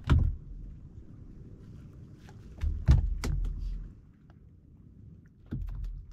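Several sharp knocks and clatters over a low rumble, the loudest cluster about three seconds in.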